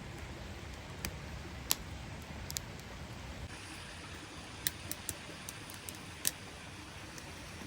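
Wood campfire crackling, with sharp irregular pops scattered through a steady low rush.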